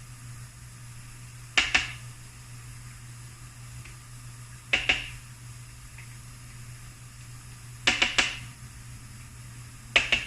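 Kitchen utensils and dishes clinking: four short, sharp clinks a few seconds apart, the third and fourth each a quick double, over a steady low hum.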